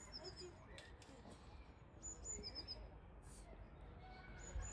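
A small bird calling faintly: a short high note followed by three quick, slightly lower notes, repeated about every two seconds, over faint background murmur of voices.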